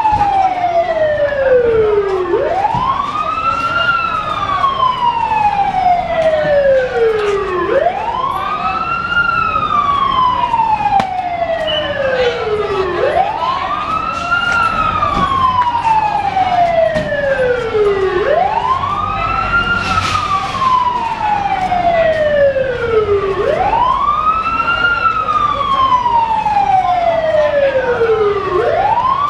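Emergency vehicle siren wailing in a slow, repeating cycle: each sweep rises quickly in pitch, then falls slowly, about every five seconds.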